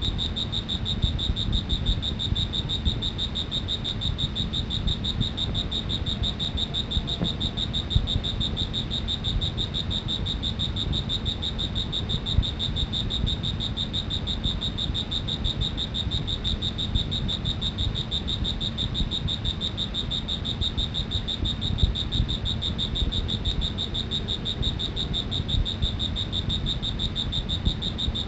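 An insect, cricket-like, trilling without pause: one high, steady, rapidly pulsing note. A low rumble runs underneath.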